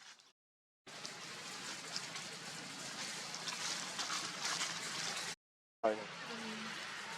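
Water splashing and sloshing, a dense, even hiss of moving water, broken twice by abrupt dead-silent edit cuts. A brief sharp sound with a short pitched note marks the start of the second stretch, about six seconds in.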